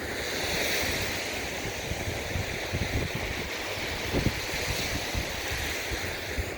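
Lake Michigan surf washing on the beach, a steady rushing hiss that swells up at the start, with wind rumbling on the microphone.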